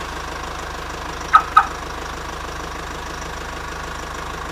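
Engine-idle sound effect for a toy truck: a steady, fast low rattle like an idling diesel. About a second and a half in it is broken by two short high chirps in quick succession.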